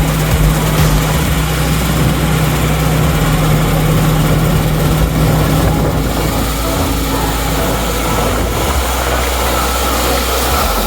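Combine harvester running steadily: a continuous engine and machinery noise with a low hum that fades about three seconds in.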